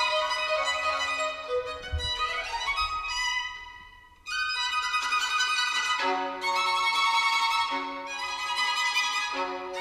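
Violin music played back through Piega Premium 501 Wireless Gen 2 loudspeakers, with sliding, sustained bowed notes. It fades away about four seconds in, then sustained violin notes start again.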